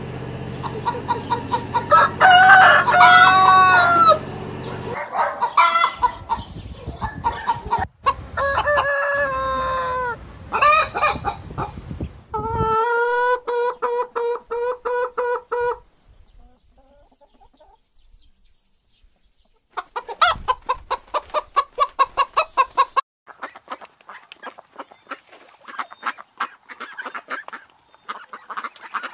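Chickens: roosters crowing several times with long rising-and-falling calls, and hens clucking in quick runs of short notes in the second half. There is a quiet gap a little past the middle.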